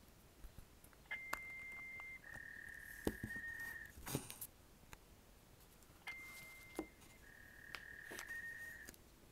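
Repeating electronic tones on a voicemail recording: a short higher beep followed by a longer, slightly lower steady tone, the pair coming twice, with faint clicks between them.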